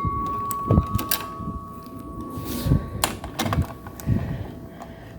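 Power drill running with a steady whine for about three seconds and then stopping, with scattered knocks and clicks around it as the lock hardware is worked on the garage door.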